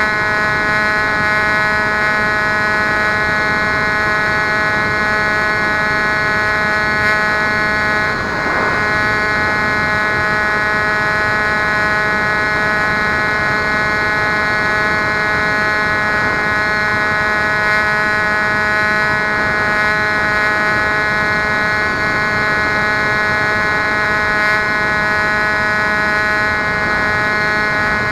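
Bixler RC plane's electric pusher motor and propeller whining steadily at cruise, picked up by the onboard camera over rushing air, with a brief dip about eight seconds in.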